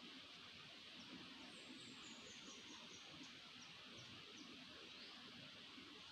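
Faint high-pitched bird calls over steady background hiss: a quick run of short notes stepping down in pitch about one and a half seconds in, a few scattered short notes, and a single rising chirp near the end.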